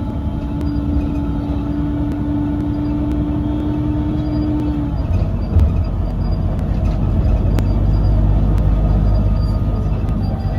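Inside bus WVL432 in motion: a steady, odd-sounding hum over the engine and road rumble, cutting out about halfway through, after which the engine and road rumble grows louder.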